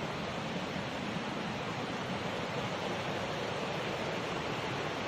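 Steady rushing of water falling at a tall waterfall: an even roar with no breaks.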